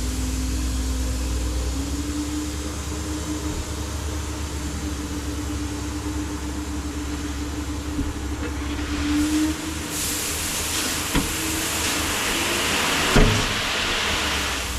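Skid steer engine running steadily while grading stone, with a hiss that swells partway through and two sharp metallic knocks near the end, the second the louder.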